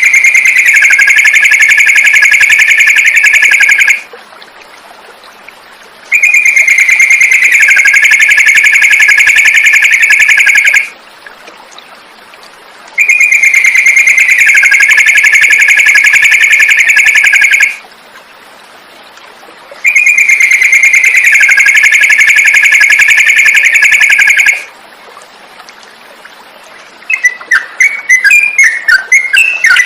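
Looped songbird tutor recording: a loud, steady, high trill held for about four to five seconds, repeated four times the same way with short pauses between. Near the end it changes to quick, choppy chirping song.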